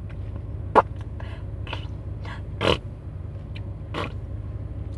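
A baby making three short vocal sounds in a car seat, the loudest about a second in, over the steady low hum of a car cabin.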